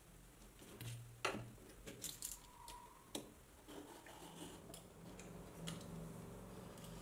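A craft knife and steel ruler clicking and scraping faintly against the edge of a thin brass sheet case, in a run of scattered small clicks, the sharpest about a second in.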